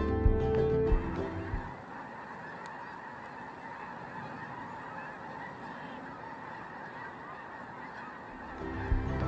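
A large flock of geese calling in flight, a dense, continuous chorus of many overlapping calls. Background music fades out about a second and a half in and comes back near the end.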